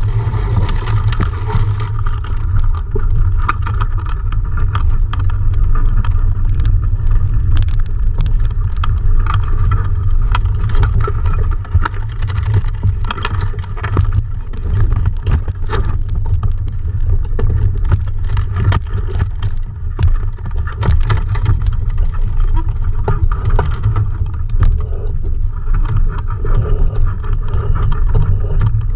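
Wind buffeting the microphone of a camera mounted at the masthead of a small sailing dinghy: a steady low rumble with frequent short knocks and rattles.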